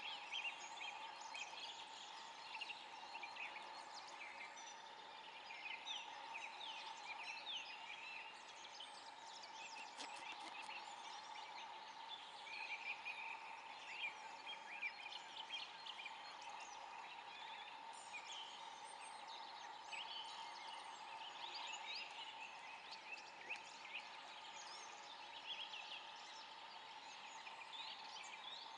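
Eurasian beaver gnawing bark off a branch: faint, rapid scraping bites of its incisors on wood, coming in bursts.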